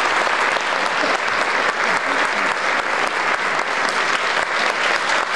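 Audience applauding: steady, dense clapping from a large crowd in a hall.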